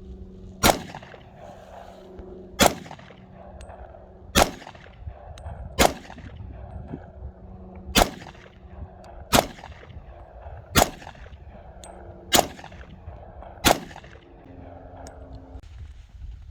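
Nine pistol shots fired one at a time, about one and a half to two seconds apart, each a sharp crack with a short tail.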